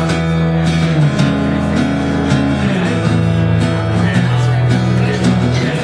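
Solo guitar played live, chords ringing out and changing about once a second.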